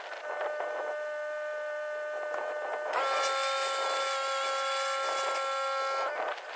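Pressure washer running with a surface cleaner: a steady mechanical whine of several tones that gets louder about three seconds in and cuts off near the end.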